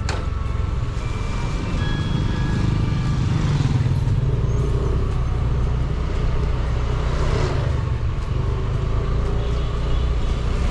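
Steady low rumble of a vehicle driving along a city road, with two swells of road noise about a third and two-thirds of the way through. Faint background music sits under it.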